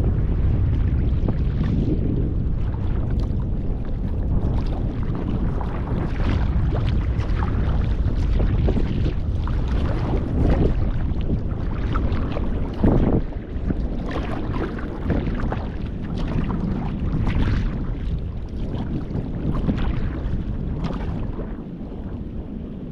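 Paddling a folding sea kayak over open water, with paddle splashes coming about every second and steady wind buffeting the microphone.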